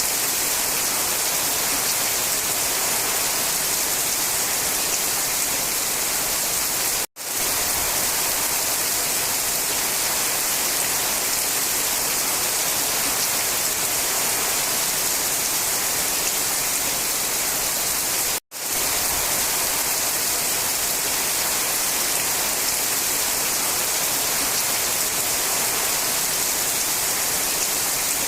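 Steady, even rainfall, a dense hiss of drops with no single drops standing out. It cuts to silence for an instant twice, about a third and two thirds of the way through, where the recording loops.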